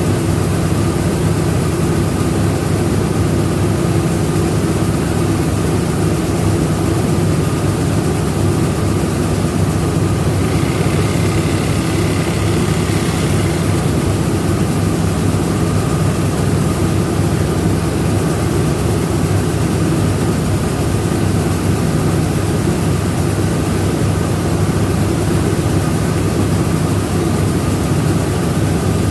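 Rice milling machinery running steadily: a loud, even mechanical drone with a steady low hum. A faint high tone joins in for a few seconds near the middle.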